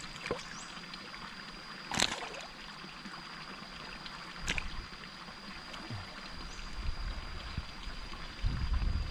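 Water splashing at the edge of a carp pond as a caught fish is put into the water by hand, with two sharp splashes about two seconds and about four and a half seconds in. Underneath runs steady trickling water and a faint, steady high whine. A low rumble builds near the end.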